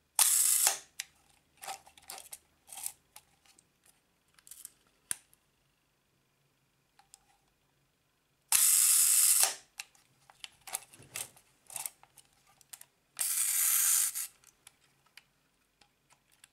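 Zorki 4 35mm rangefinder camera being cocked and fired by hand: three longer ratcheting stretches, at the start, about halfway and near the end, with a scatter of sharp mechanical clicks between them.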